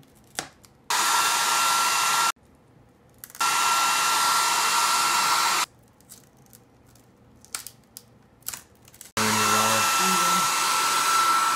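Handheld blow dryer blowing hot air in three runs of a couple of seconds each, a steady rush with a thin high whine, heating the adhesive under a MacBook Pro's screen glass to soften it. Between runs, light clicks and taps.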